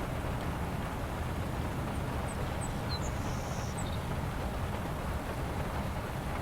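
Steady low rushing rumble of outdoor background noise, with a few short high chirps around the middle.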